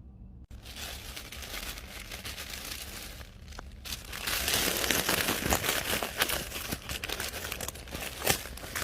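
Packaging being unwrapped by hand: dense crinkling and rustling of wrapping, starting suddenly and growing louder about halfway through.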